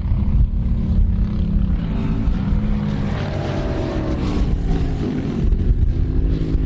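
Racing motorcycle engine running loudly, its pitch shifting up and down around the middle.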